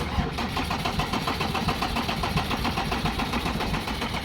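Ford Ranger diesel engine cranking on the starter motor without firing, an even rapid rhythm of compression pulses that begins abruptly. It is a crank-no-start, a symptom typical of failing diesel injectors.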